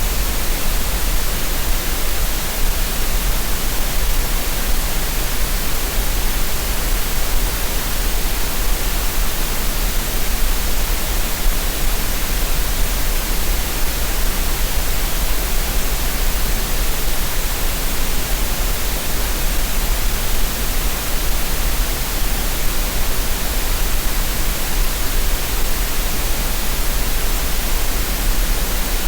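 Steady synthetic green noise: a constant, even rush of hiss with no changes, made as a relaxation and tinnitus-masking sound.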